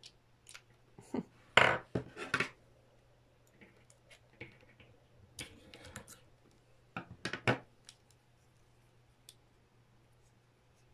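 Hard resin parts of a ball-jointed doll clicking and scraping against each other as they are handled, in irregular short knocks, the loudest a cluster about two seconds in and another about seven seconds in. A faint steady low hum lies underneath.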